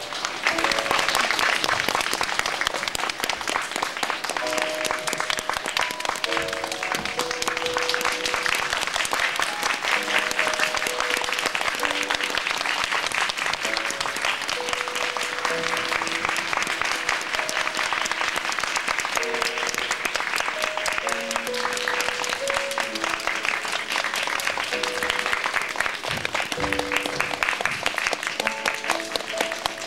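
Concert audience clapping continuously in a large hall, with music of slow, held notes playing underneath.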